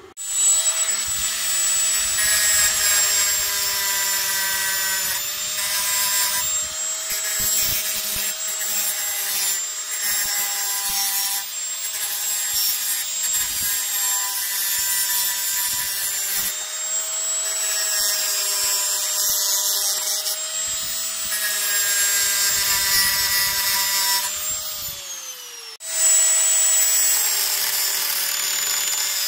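Angle grinder with a thin cut-off disc running at speed and cutting through steel bar, a steady high whine over the hiss of the disc biting the metal. A few seconds before the end the whine falls away and stops briefly, then the grinder is at full speed again on the next cut.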